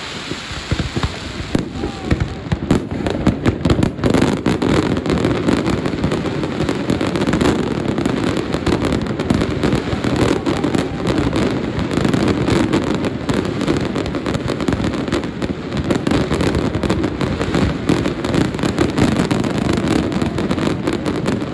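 Fireworks display going off in a dense, continuous barrage, with many bangs and crackles overlapping; it is the closing stretch of the show.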